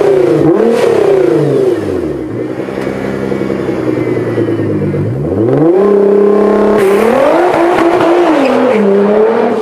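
High-performance car engine revving and accelerating, its pitch wavering up and down, sinking for a few seconds, then climbing sharply about five seconds in, with an abrupt change near seven seconds like a gear change.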